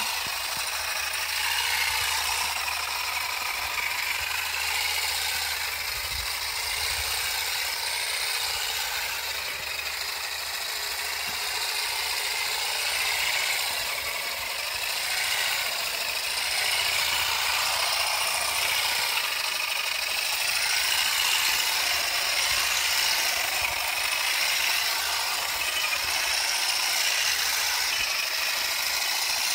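Battery-powered electric olive harvester (GeoTech Olive Picker 400 EVO) running steadily, its comb rakes beating rapidly through olive branches with a continuous mechanical clatter.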